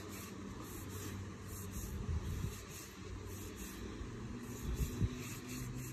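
Low rumble of a distant motor vehicle, with a steady low hum coming in near the end.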